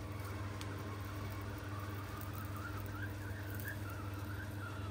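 Hot-air rework blower running steadily, a low hum with a high, wavering whine, as it heats the solder of an old USB charging connector on a circuit board. One small click comes about half a second in.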